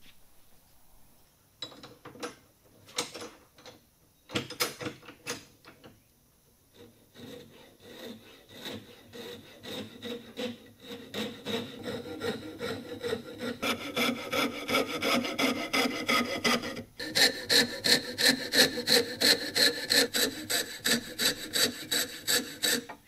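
Coping saw cutting a curve through a wooden block: a few hesitant starting strokes, then steady rasping strokes that build to about four or five a second, with one short break, before stopping abruptly near the end.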